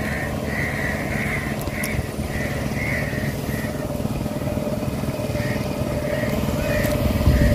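Motorboat engine running at a steady drone.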